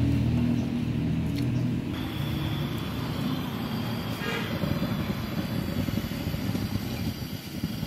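A steady low engine hum, like a motor vehicle running nearby, which gives way about two seconds in to a rougher, uneven low rumble.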